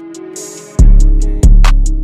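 Instrumental hip hop beat with no vocals: drum-machine hi-hats ticking, a held note, and a deep bass drum hitting twice in the second half.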